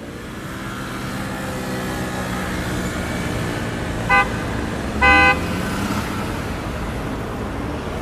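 Road traffic running steadily, with a car horn tooting twice: a short beep about four seconds in and a slightly longer one about a second later.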